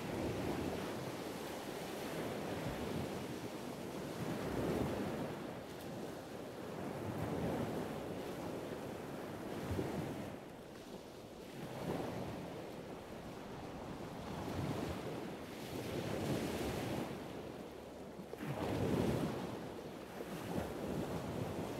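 Waves washing and lapping in slow swells that rise and fall every few seconds, with a wind-like hiss.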